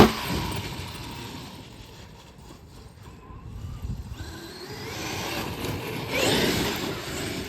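Traxxas XRT RC monster truck's brushless electric motor and drivetrain whining as the truck is driven: a sharp knock right at the start, the whine falling away, then rising in pitch as it speeds up again and dropping off near the end.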